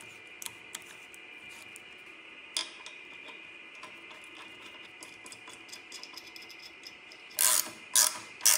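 Light clicks and taps of metal parts being handled, then near the end three short loud bursts of a hand ratchet clicking, about half a second apart, as a nut is tightened on the bolt holding a lower ball joint. A faint steady high whine runs underneath.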